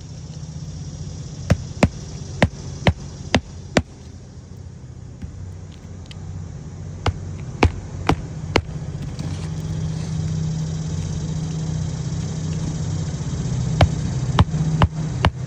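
Hammer driving roofing nails through new asphalt shingles: three runs of sharp strikes, about two a second, six in the first run and four in each of the others. A steady low engine-like hum runs underneath and grows louder about halfway through.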